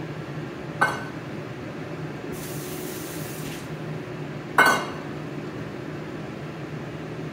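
Two sharp metallic clinks with a short ring as a stainless steel bowl knocks against metal, about a second in and again louder near five seconds in. A brief high hiss comes in between, over a steady low hum.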